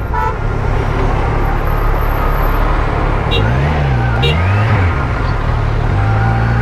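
Motorcycle riding noise: heavy wind rush over the rider's camera, with the superbike's engine running underneath, its pitch rising and falling a few times in the second half.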